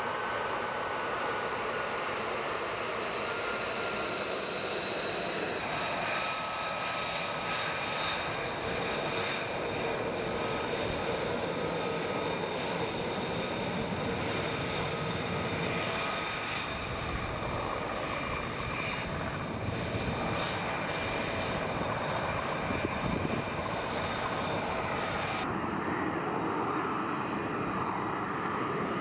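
F-35B Lightning II's F135 jet engine running, a steady high whine over a broad rush of engine noise, with sudden changes in the sound at about 6 and 25 seconds in as the shots cut. In the last few seconds the sound turns deeper and more distant as the jet takes off.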